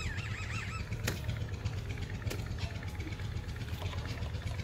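A steady low mechanical hum, with a short wavering whistle-like tone right at the start and a few faint clicks.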